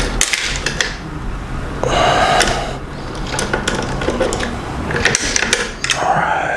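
Phillips screwdriver backing a screw out of a shotgun's stock adapter: a run of small metal clicks and scrapes, with two short squeaks about two seconds and six seconds in.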